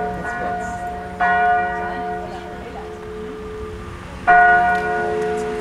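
Church tower bells ringing. Two loud strikes come, about a second in and about four seconds in, and each note hums on steadily between strikes.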